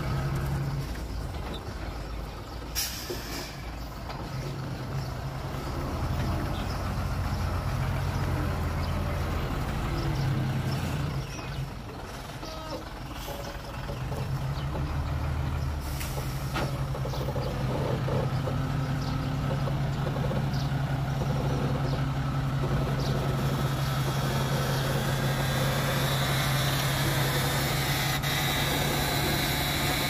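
Heavy diesel earthmoving machinery running, its engine note dipping and then rising again, with sharp air-brake hisses about three seconds in and again around sixteen seconds in.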